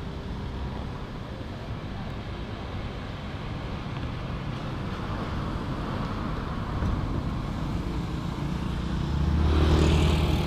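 Road traffic rumbling steadily, with one motor vehicle's engine growing louder and passing close about nine seconds in, then fading.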